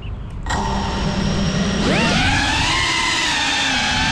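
FPV cinewhoop drone's brushless motors spin up about half a second in, then throttle up with a sharply rising whine about two seconds in as it lifts off. After that the multi-tone whine wavers in pitch with the throttle.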